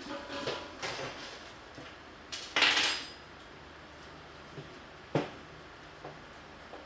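Handling noises of hard objects: light knocks and clatter, a louder scraping rattle about two and a half seconds in, and one sharp knock about five seconds in.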